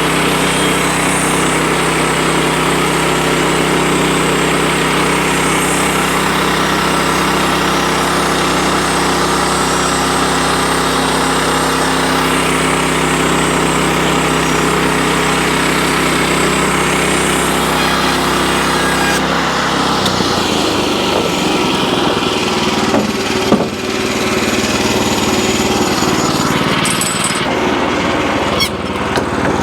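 Wood-Mizer LX25 band sawmill running with its gas engine at a steady speed; about two-thirds of the way through the engine note shifts and turns rougher, with a few sharp knocks near the end.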